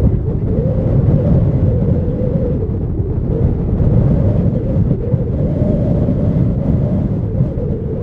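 Strong wind buffeting the microphone, over the low rumble of a Boeing 737-800's CFM56 jet engines on final approach. The rumble is loud and unbroken, wavering a little in pitch.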